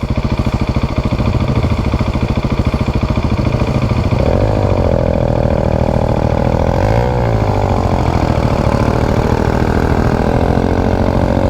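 Motorcycle engine running steadily close by. From about four seconds in, a second motorcycle's engine note rises and wavers as it is ridden under load in soft sand.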